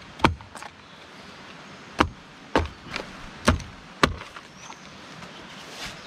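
Blows of a hand tool, about five sharp knocks at uneven intervals, each with a low thud.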